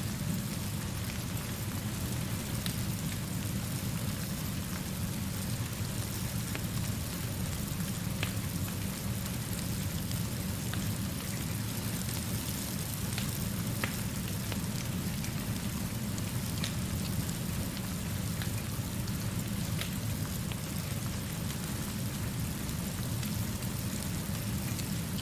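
Steady rainfall, with a low rumble underneath and occasional faint clicks scattered through it.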